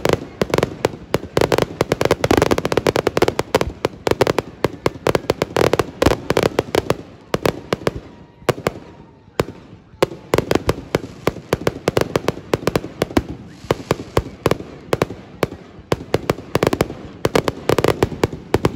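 Aerial fireworks going off in a rapid barrage: dense bangs, pops and crackling many times a second, thinning briefly about eight seconds in before picking up again.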